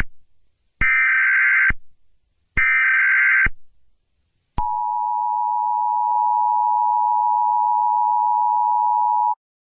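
Emergency Alert System tones: two short bursts of SAME header data about a second apart, then the steady two-tone attention signal for nearly five seconds, cutting off sharply. They mark the start of a broadcast emergency alert, here a National Weather Service extreme heat watch.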